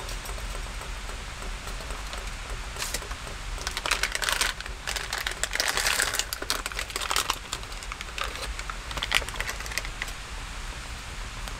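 Foil packet of instant miso soup being crinkled and torn open by hand: dense crackling in the middle of the stretch and a short burst again near the end, over a steady background hiss.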